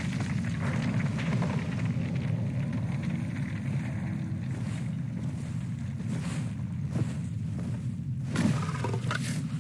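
A deep, steady rumble of a film soundtrack, with several whooshes over it in the second half. The loudest whoosh comes about eight and a half seconds in.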